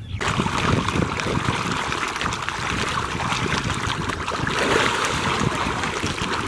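Many tilapia thrashing at the surface of a fish pond as they feed: a dense, continuous patter of small splashes that starts suddenly.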